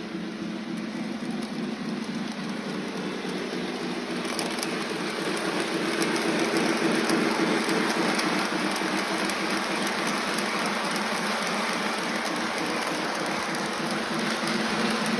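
O-scale Polar Express toy train running on its track: a steady rattling rush of wheels on rails over a motor hum. It grows a little louder about four seconds in, with light clicking from then on.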